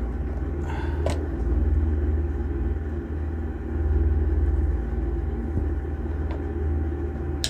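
A steady low rumble, with a few short clicks as an oven's control knob is turned.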